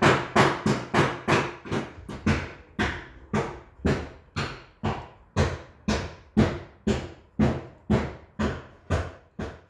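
Steady blows from inside on the heat-softened sheet-metal rear quarter panel of a Peugeot 208, knocking the dent out. About three strikes a second, each with a short metallic ring, getting a little softer near the end.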